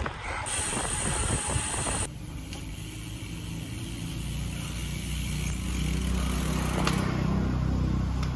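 Wind rushing on the microphone for about two seconds, cutting off abruptly. Then a motor vehicle's engine runs steadily and grows gradually louder, with one sharp click about five and a half seconds in.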